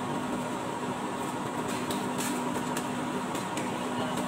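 Busy fish-market ambience: a steady mechanical hum under a constant wash of noise, with scattered short sharp clicks and knocks from fish and ice being handled.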